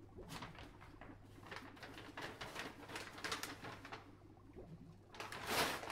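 Brown paper bag crinkling and rustling as it is handled and pulled open, in irregular crackles that grow denser and louder about five seconds in.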